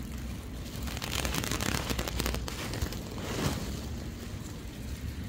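Wind noise with rustling. A crackly stretch comes between about one and two and a half seconds in, and a brief whooshing swell comes about three and a half seconds in.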